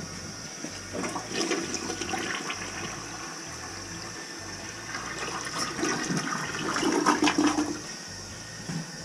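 Toilet being flushed, water rushing and swirling down the bowl in two surges, the louder one about seven seconds in. It is a test flush of the house's main sewer drain after a clog.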